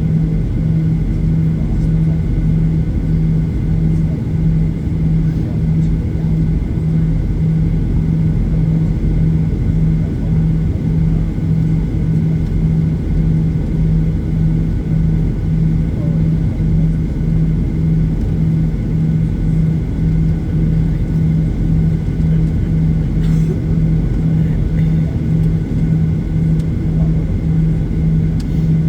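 Boeing 737-800's CFM56-7B engines idling after start, heard inside the cabin: a steady low hum that pulses about one and a half times a second over a low rumble, with faint steady whines higher up.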